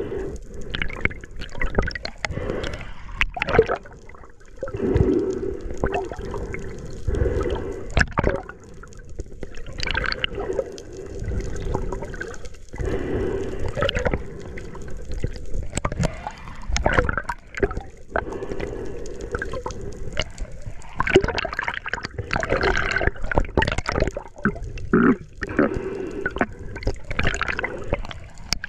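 Seawater sloshing and gurgling around a camera at or under the surface, with irregular splashes, bubbling and small clicks and knocks coming and going.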